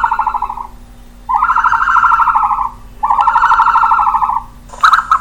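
Ostrich calls, given as its growl: three long, harsh, rapidly pulsing calls of about a second and a half each, then a short one near the end.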